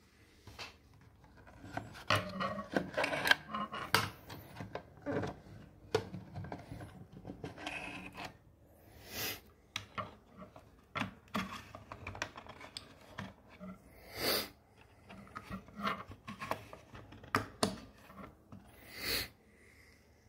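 Handling noises of cylindrical batteries being pulled out of one Nitecore charger and pushed into the slots of a Nitecore UM2 charger: irregular plastic clicks, scrapes and rubbing, with a few louder rustling bursts.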